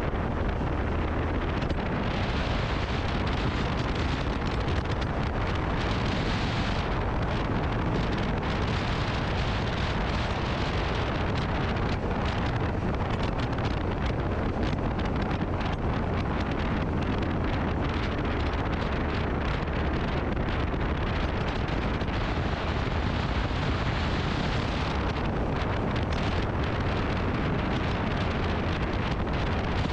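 Wind rushing over the microphone of a camera on a moving motorcycle, with steady engine and road noise underneath.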